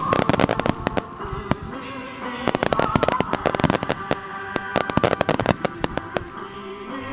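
Starmine fireworks display: shells bursting and crackling in rapid volleys, many sharp reports in quick succession that come in waves, with music playing underneath.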